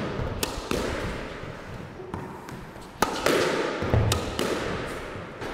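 Squash racket striking the ball on backhand drop shots, with the ball hitting the front wall and floor: sharp cracks in quick pairs that echo around the court, with a low thud about four seconds in.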